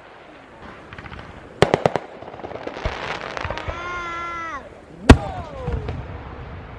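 Backyard consumer fireworks going off: a quick cluster of sharp cracks, then crackling. A held whistle drops in pitch, and a single loud bang is followed by a short falling whistle.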